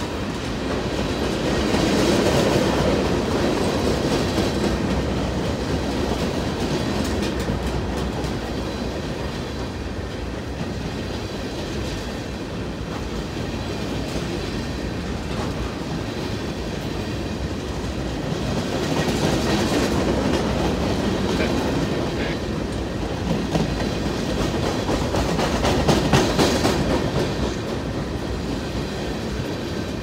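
Empty wind-turbine flatcars of a CN freight train rolling past, a steady rumble and rattle of wheels on rail with scattered clicks. It swells louder about two seconds in, again around twenty seconds, and near the end.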